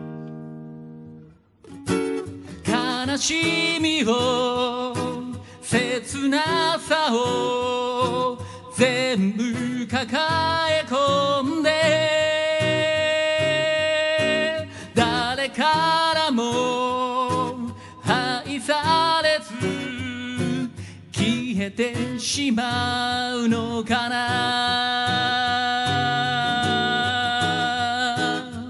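A man singing to his own acoustic guitar, holding long notes with vibrato. The guitar chord is heard alone at first, and the voice comes in about two seconds in.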